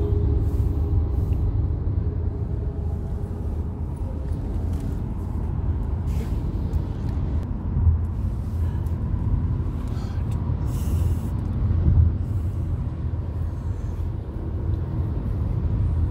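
Inside a BMW car's cabin at motorway speed: a steady low rumble of road and engine noise, swelling briefly twice, about halfway and again a few seconds later.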